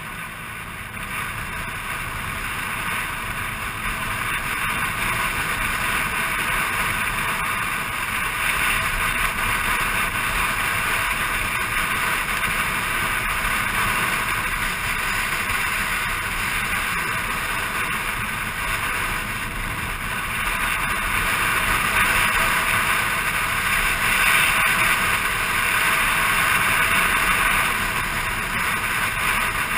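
Scooter riding along a road: its engine runs steadily under the rush of wind on a helmet-mounted camera, getting louder over the first few seconds.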